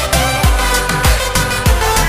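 Background music with a steady kick-drum beat about twice a second under sustained melody notes.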